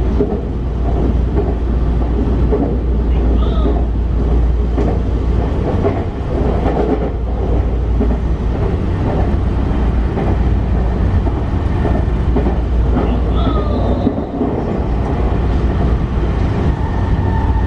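Sotetsu electric commuter train running along the line, heard from inside the car: a steady low rumble of wheels on rail with frequent knocks and clicks. A steady high tone comes in near the end.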